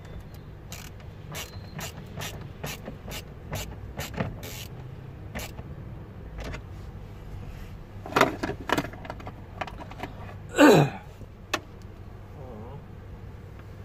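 Screwdriver work on the plastic steering-column cover of a car: a run of short clicks as the screws are tightened so the trim won't rattle, then a few louder plastic knocks. The loudest sound, near the end, is a short creak falling in pitch.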